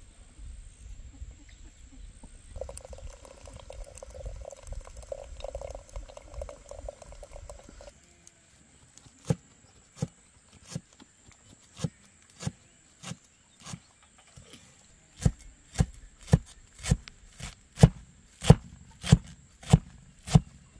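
Tea trickling from a small teapot into a glass. Then a cleaver chopping fresh herbs on a wooden cutting board: sharp knocks, scattered at first, then steady at about two chops a second and loudest near the end.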